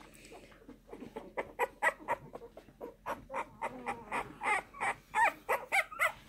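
Two-week-old bully puppies whimpering and squealing: a quick run of short, high, chirping cries, several a second, getting louder after about a second.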